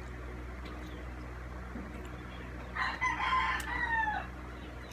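A rooster crowing once, a single cock-a-doodle-doo about three seconds in that ends on a falling note, over a steady low hum.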